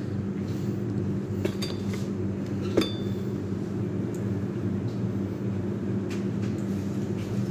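A few light clicks and one sharper metallic clink with a short ring about three seconds in, as florist's secateurs are handled and set against hard surfaces, over a steady low hum.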